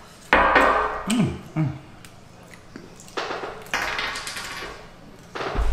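Close-up eating sounds of fried chicken wings being chewed and gnawed down to the bone, with crunching and smacking coming in several short bursts and a brief low vocal grunt about a second in.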